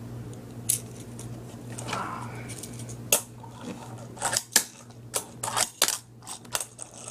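Small plastic clicks and rattles of a fingerboard's packaging and parts being handled on a wooden table, coming thick and fast in the second half, over a steady low hum.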